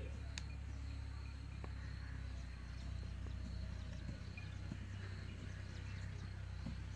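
Quiet outdoor ambience: a steady low rumble underneath, a thin steady high whine throughout, and a few faint bird chirps.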